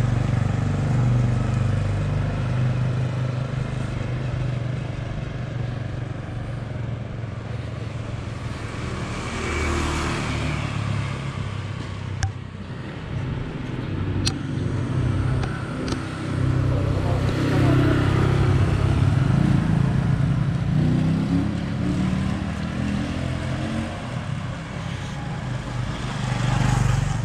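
Motor scooters passing on a street, their engines swelling and fading several times over a steady low rumble, with a couple of sharp ticks near the middle.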